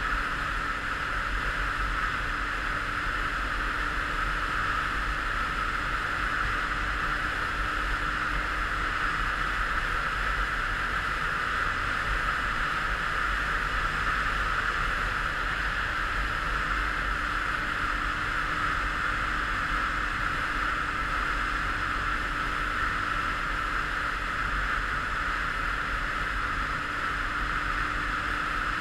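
Derbi Senda Xtreme 50's single-cylinder two-stroke engine running steadily at cruising speed, mixed with wind rush from riding.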